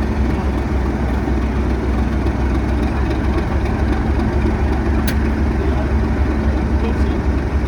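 Class 37 diesel locomotive's English Electric V12 engine idling, a steady deep hum with a constant tone above it. A single brief click about five seconds in.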